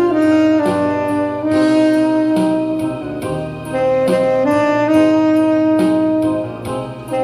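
Yamaha YTS-62 tenor saxophone with a Jody Jazz HR* mouthpiece playing a slow melody in long held notes, over a backing track with a steady beat.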